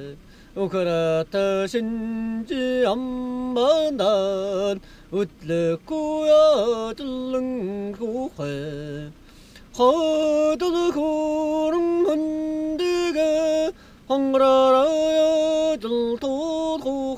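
A single voice singing a slow, unaccompanied melody, with pitch slides, long held notes and short pauses between phrases.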